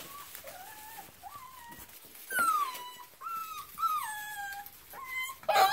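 Several Vizsla puppies, about six weeks old, whining: a string of high whines, many sliding down in pitch, faint at first and louder from about two seconds in.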